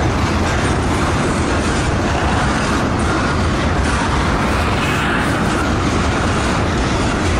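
Tank cars of a freight oil train rolling past: a steady rumble and rush of steel wheels on the rails, with a few faint clicks.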